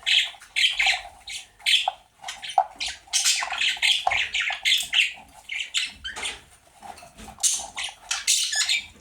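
Caged budgerigars chattering and squawking in a rapid, continuous run of short high calls.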